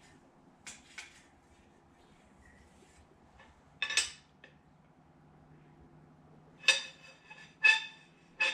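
Steel straight edge clinking against bare engine metal during a flatness check with feeler gauge shims. There are about six sharp metallic clinks, each with a brief ringing tone; they are faint near the start and loudest about four seconds in and near the end.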